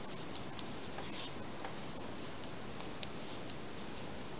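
Circular knitting needles clicking lightly as stitches are worked: a few scattered, irregular ticks over a steady background hiss.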